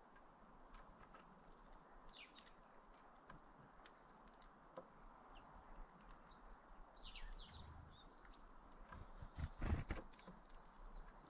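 Faint bird calls: small clusters of high, quick chirps and downward-sliding notes, a couple of seconds in and again about seven seconds in, with a few soft low thumps near the end.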